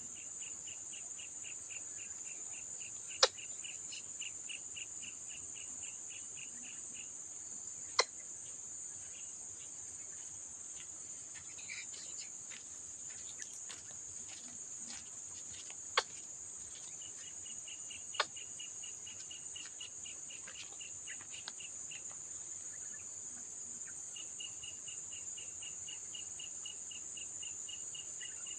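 Insects chirring: a steady high drone, with a lower rapid pulsed trill that stops about a quarter of the way in and comes back in the second half. Four sharp clicks stand out above it.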